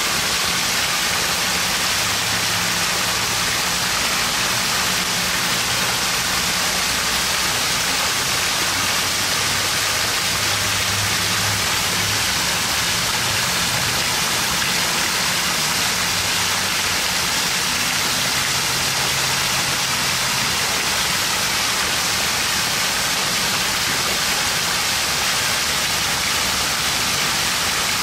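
Water pouring in a curtain off the rim of a splash-pad umbrella fountain and splashing down below: a steady, even rush of falling water that never changes.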